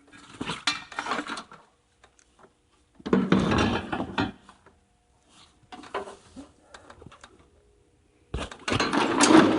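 Intermittent clattering and rattling of hands handling gear, in four short bursts with quiet gaps between them.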